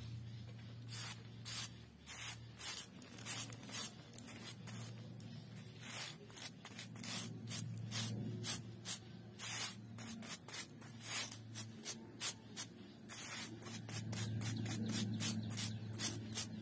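Repeated short scraping strokes, irregular at about one to three a second, over a steady low hum.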